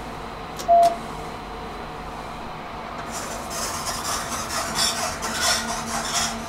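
An elevator's floor button is pressed: a click and a short, loud beep come under a second in. From about three seconds in, the car's sliding doors run shut with an uneven mechanical rattle.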